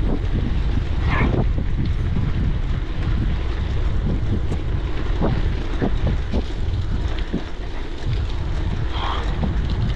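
Wind buffeting the microphone of an on-board GoPro action camera while riding a gravel bike, a steady low rushing noise.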